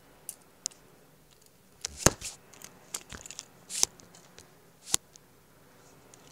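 Small metal clicks and scrapes as the ring of a fishing lure is worked onto the snap clip of a steel leader. Scattered ticks, the sharpest about two seconds in, near four seconds and about five seconds in.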